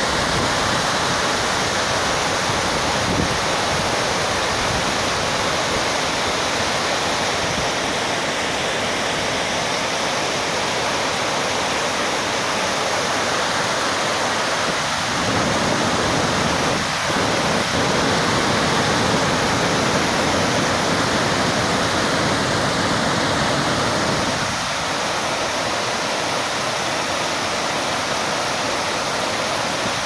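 River water pouring over a low weir and churning in the white water below it: a loud, steady rushing.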